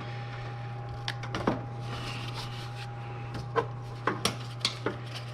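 Scattered light clicks and knocks of engine-bay parts being handled and fitted back into place during reassembly, a handful of them, with a few close together after the middle. Under them runs a steady low hum.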